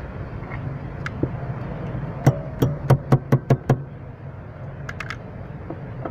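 A quick run of about seven sharp knocks over roughly a second and a half, with a few single clicks before and after. It is hand tapping on metal at the clutch pedal bracket while the clutch master cylinder pushrod pin is refitted. A low steady hum runs underneath.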